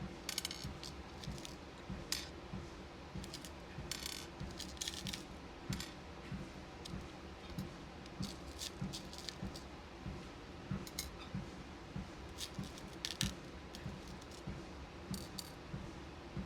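Small beads and pins clicking and rattling as they are sorted by hand. Underneath runs the steady hum of a walking pad, with regular footfalls about twice a second.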